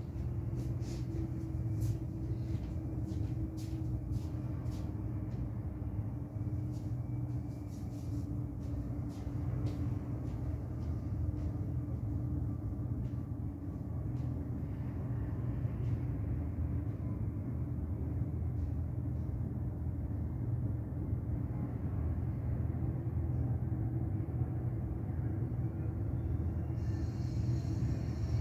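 Steady low rumble of city traffic heard from high above a busy elevated highway, with a faint steady hum under it. Scattered light clicks come in the first ten seconds.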